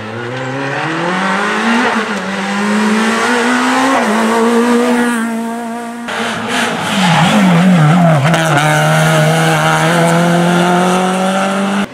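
Rally car engines at full throttle. A Citroën Saxo rally car's engine climbs steadily through the revs. About six seconds in, a Renault Clio rally car's engine takes over; its pitch dips and rises quickly several times, then holds steady at high revs.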